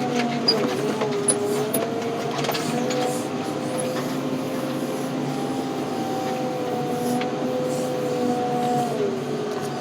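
Engine of a car-handling machine running under load while it pushes over trees. Its pitch rises to a steady higher hum a second or two in and holds there, then drops back to idle near the end, with a few faint cracks and ticks on top.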